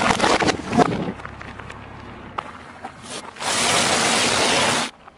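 Car tyre rolling over and crushing things on asphalt: crackling and clicking with a brief squeak at first. About three and a half seconds in comes a loud, even crunching of puffed corn snacks being flattened under the tread, which stops abruptly about a second and a half later.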